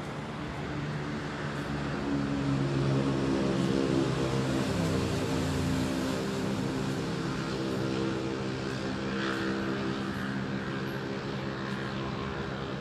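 Steady engine drone of a passing motor, growing louder about two seconds in and then slowly easing off.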